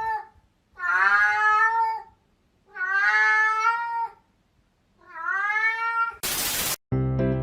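A cat meowing: the end of one long, drawn-out meow, then three more about a second apart. A brief burst of hiss follows, and music starts just before the end.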